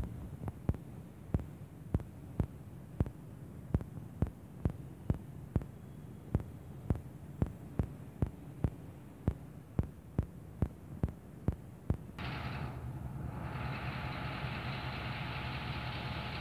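Sharp, evenly spaced ticks, about two a second, over a low hum; about three quarters of the way through this gives way to a ZCU-20 diesel-electric locomotive's engine idling close by, a steady hum.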